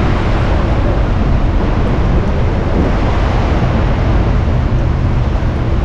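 Steady rush of the churning tidal current at the Naruto whirlpools, with a low rumble underneath and wind on the microphone.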